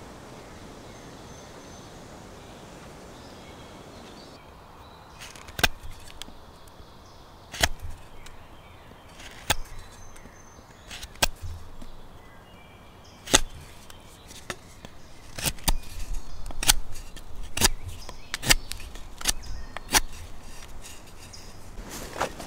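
Knife blade cutting into a green wooden stick to carve a point: sharp, crisp strokes about every two seconds starting about five seconds in, coming faster in the second half.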